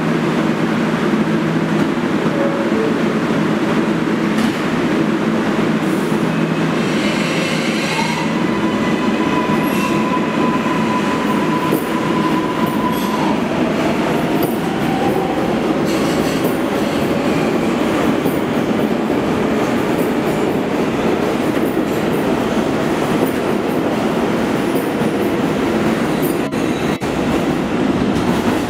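R142A subway train pulling out and accelerating away along the platform, with a constant rumble of motors and wheels. About eight seconds in, a high steady whine holds for about five seconds, then drops in pitch. In the second half, wheels click over rail joints as the cars pass.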